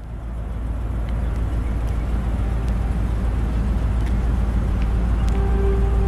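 The Range Rover P38's 4.6-litre V8 idling with a steady low exhaust rumble that fades in over the first second. A steady higher tone comes in about five seconds in.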